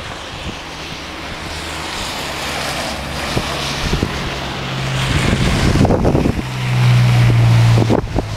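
A motor vehicle's engine hum growing louder and peaking near the end before dropping away, with wind buffeting the microphone.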